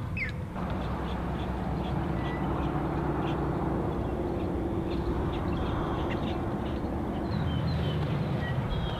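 Steady outdoor wind and water noise on an open lake, with a few short, high bird chirps about two seconds in and again near the end.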